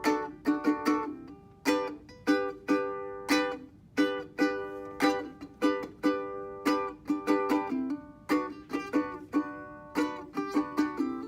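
Ukulele strumming chords in a steady rhythm, each strum ringing and fading before the next.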